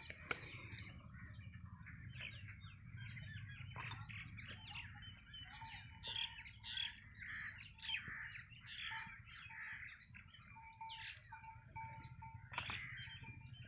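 Birds chirping: a busy, continuous run of short, high chirps and calls from several birds, fairly faint, over a low steady rumble.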